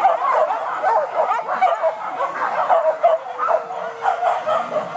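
Several hunting dogs barking and yelping together, many short high yips overlapping without a break.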